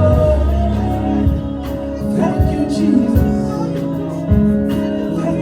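Live church worship band music: sustained keyboard chords with drum hits and a voice singing along.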